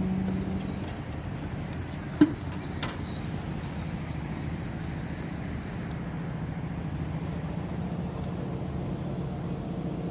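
An engine running steadily with an even low hum. A sharp click about two seconds in, and a smaller one just after.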